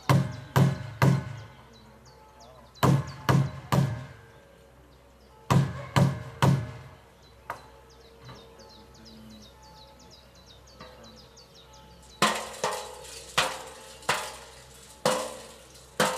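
Sharp bangs or knocks: three quick groups of three, each about half a second apart, then a looser run of about six louder, brighter bangs near the end. Birds chirp faintly behind them.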